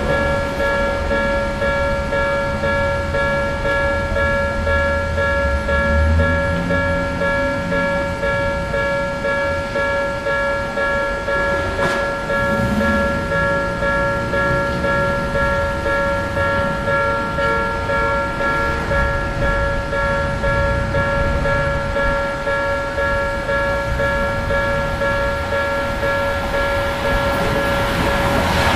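Japanese level-crossing warning bell ringing in a steady repeating pattern of high electronic tones. Right at the end the rumble of an arriving train starts to rise under it.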